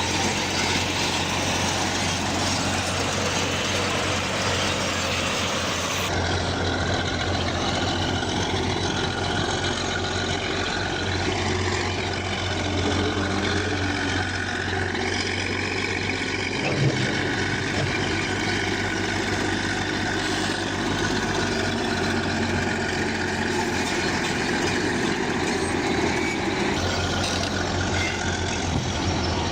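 Heavy machinery running, a steady diesel engine drone with metallic working noise. The sound changes abruptly about six seconds in.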